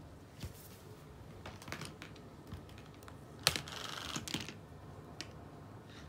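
Scattered light clicks and taps from a cat's paws and claws on a wooden floor and against a toy mouse. The sharpest tap comes about three and a half seconds in, followed by about a second of scuffling.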